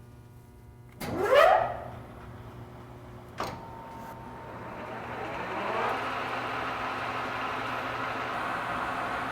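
Shop saw's electric motor starting up to cut a length of steel hydraulic rod. About a second in there is a loud, quick rising whine, and a sharp click follows a couple of seconds later. The machine then winds up again from about halfway through and runs steadily.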